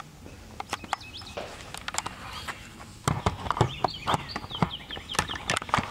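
Footsteps and irregular sharp clicks and knocks on a concrete floor, growing louder and busier about three seconds in, with short high chirps among them.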